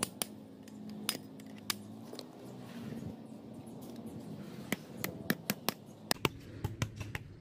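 Metal parts and tools being handled while building a workshop saw: scattered sharp clinks and taps, coming in a quick run in the last few seconds.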